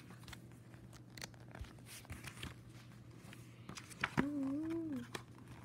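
Pages of a paperback graphic novel being flipped and handled: soft paper rustles and small taps over a steady low hum. About four seconds in, a child's voice hums briefly, rising and falling in pitch.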